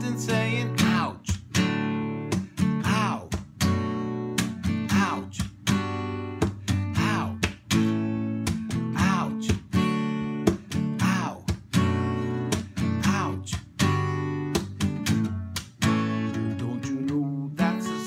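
Acoustic guitar strummed in a steady rhythm, about two strokes a second, with a man's wordless singing over it.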